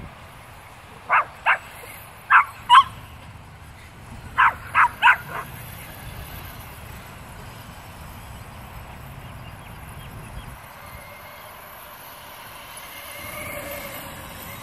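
A small dog yapping in short, sharp barks, about eight in all, in two quick bursts in the first five or so seconds. Near the end comes a faint whine from the small electric motor of a remote-control buggy.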